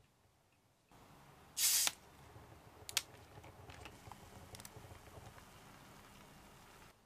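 Pepsi 生 ZERO cola poured from a plastic bottle into a glass, fizzing and crackling as it fills. A short loud hiss comes about a second and a half in, a sharp click about a second later, and the sound cuts off suddenly near the end.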